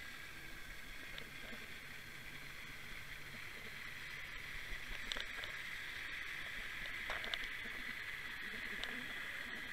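Steady water hiss heard through an underwater camera drifting over the sea bottom, with a few faint clicks about five and seven seconds in.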